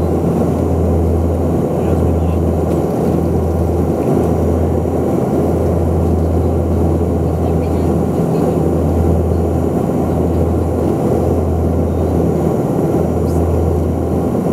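Antonov An-24RV's twin Ivchenko AI-24 turboprop engines and propellers droning steadily as heard inside the passenger cabin on approach, with a deep hum that dips briefly every second or two.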